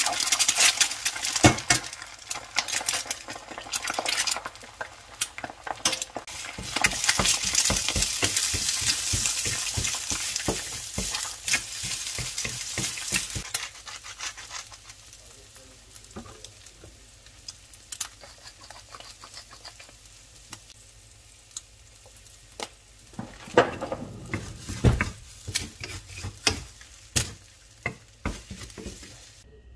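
Eggs sizzling in a hot stainless-steel frying pan while a wooden spatula stirs and scrapes them. The sizzle is loudest in the first half and dies down; after that come mostly scattered taps and scrapes of the spatula on the pan.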